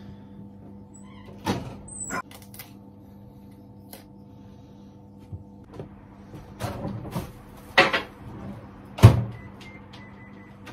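Kitchen handling noises: dishes clattering and several sharp knocks, the loudest about nine seconds in as the microwave oven door is shut. A run of short electronic keypad beeps follows near the end. A steady low hum runs underneath.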